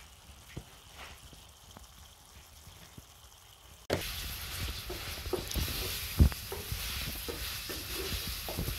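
Goat liver and tomatoes sizzling in a metal pan while a wooden spoon stirs them, knocking against the pan. The sizzle is faint at first and louder from about four seconds in, with one sharp knock about two seconds after that.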